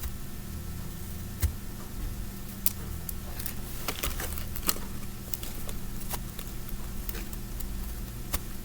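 Scattered light clicks and handling noise from a marble mesh fidget toy being turned in the hands, over a low steady hum.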